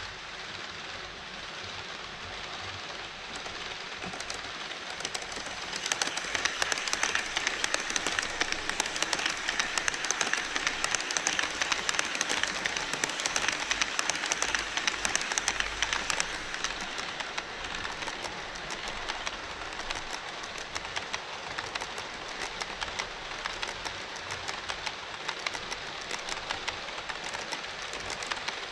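HO scale model trains running on Kato Unitrack across a steel truss bridge: a steady rolling hiss with a rapid run of fine wheel clicks over the rail joints. The sound grows louder from about six seconds in as an E5 Shinkansen model passes close on the near track, then eases off.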